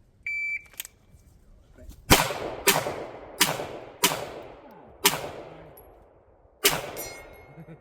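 A shot timer's start beep, then six pistol shots fired one after another from the draw at a distant steel target. The shots come unevenly, about half a second to a second and a half apart, each followed by a long fading echo; the last comes about 6.4 s after the beep.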